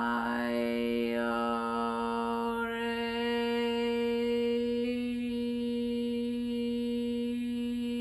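A woman's voice toning one long held note on a single pitch in a wordless light-language chant; the vowel shifts during the first few seconds, then the tone holds steady.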